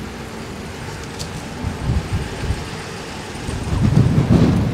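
Wind buffeting the microphone of a rider on a moving electric unicycle: a low, gusty rumble that swells louder near the end.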